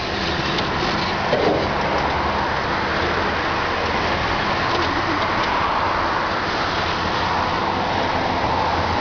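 High-reach demolition excavator running steadily, with engine and hydraulic noise as its attachment works the top of a building, and a few short squeaks.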